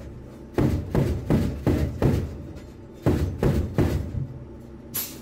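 Armoured vehicle's turret autocannon firing in automatic bursts, heard from inside as rapid heavy thuds, about four or five a second. Two bursts, the second ending about four seconds in, with a brief hiss near the end.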